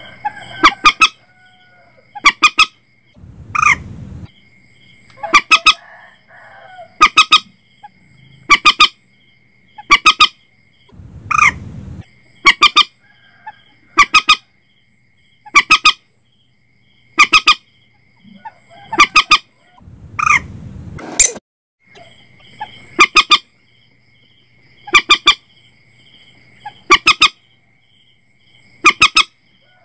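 Common moorhen (mandar batu) calling: loud, sharp, harsh double notes repeated about every one and a half to two seconds, over a steady thin high-pitched whine.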